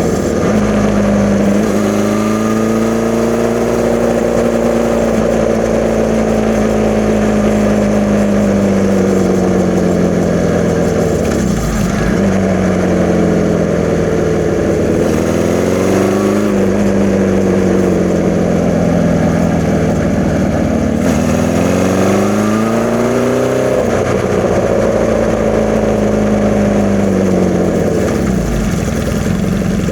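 1981 Honda CB650's air-cooled inline-four running through a Hindle 4-2-1 exhaust, newly fitted with Mikuni VM34 carburettors. Its pitch climbs and falls away several times, with quick dips and rises between long, slower swells.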